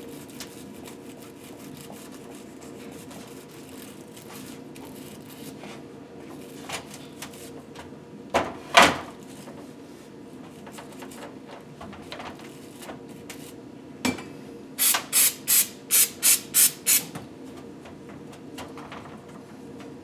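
Short hissing blasts of pressurised spray or air used to clean the engine parts: two longer hisses about eight seconds in, then a clack and a quick run of about eight short hisses. A steady low shop hum runs underneath.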